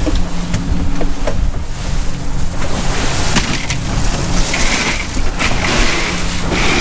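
Ice crunching and clattering as a wahoo is pushed down into a cooler packed with crushed ice. Underneath is a steady low rumble from the boat's engine, with wind on the microphone.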